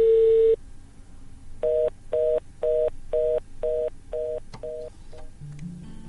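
A steady telephone dial tone that cuts off about half a second in, then eight short, evenly pitched keypad beeps about half a second apart as a number is dialled on a mobile phone. Soft music comes in near the end.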